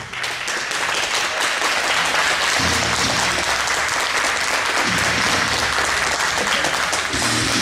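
Audience applauding, with music and its bass line playing underneath.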